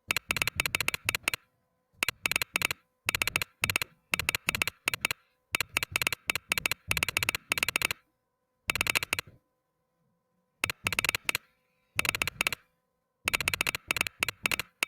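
Mechanical keyboard with Gateron Red linear switches being typed on in bursts of rapid keystrokes, each burst about a second long with short pauses between them and a longer pause near the middle.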